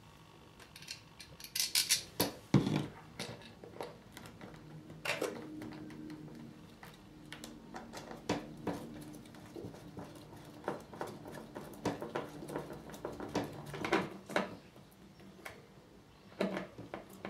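Screws being driven by hand to fix a small computer cooling fan to a shed's wooden wall: scattered clicks, knocks and small metal clinks from the screwdriver and screws. A faint steady hum runs underneath for several seconds in the middle.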